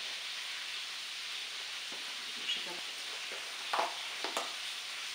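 Packaging of a set of freezer bags being handled and opened, rustling and crinkling in a few short bursts over a steady background hiss, the loudest about two-thirds of the way through.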